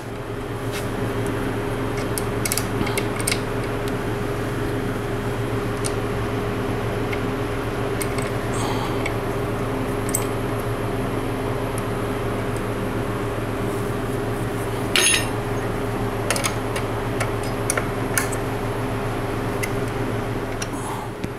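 Steady machine hum with scattered light metallic clicks and clinks as chrome motorcycle parts, the horn cover and its bracket, are handled and fitted; the sharpest click comes about two-thirds of the way through.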